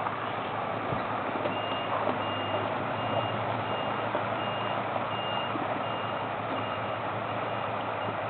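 A vehicle's reversing beeper, a high beep repeating about every 0.6 s, starting about a second and a half in, over steady engine and outdoor noise.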